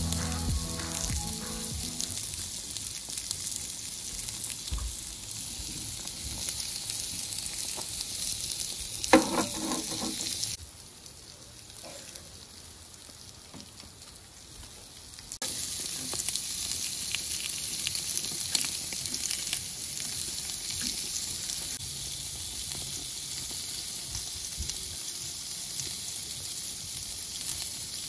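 Lamb cutlets sizzling on a barbecue grill plate, a steady hiss that drops quieter for about five seconds near the middle. A short louder noise comes about nine seconds in.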